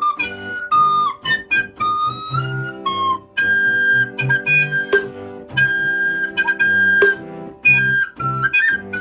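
A soprano recorder playing a simple melody of held notes over a low chordal backing accompaniment, with short light clicks between the notes.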